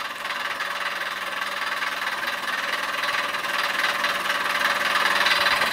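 Mamod ME1 model marine steam engine running fast under steam, a quick, even mechanical chatter that grows slowly louder.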